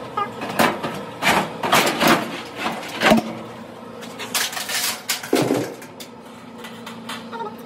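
Irregular clanks, knocks and scrapes of sheet metal as an older GE dryer's drum is handled and pulled out of its cabinet, the clatter coming in two clusters with a brief lull between them.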